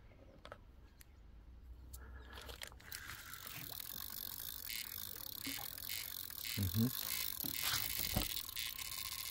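Carp fishing reel ratcheting rapidly while a hooked carp is being played. The sound starts about three seconds in and grows louder.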